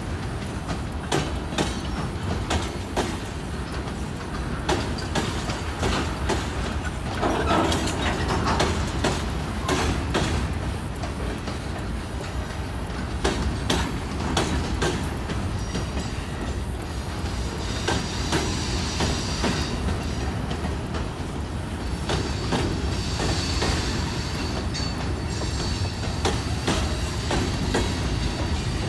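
Freight cars rolling past at speed: steel wheels clicking over rail joints over a steady low rumble. A thin high wheel squeal comes and goes in the second half.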